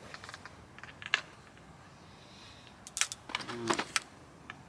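Small clicks and taps of fishing tackle being handled at the seatbox, with a denser cluster of sharper clicks and rattles about three seconds in.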